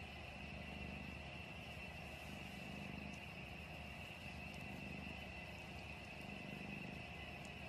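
Domestic cat purring, a faint low rumble that swells and eases with each breath, roughly every two seconds.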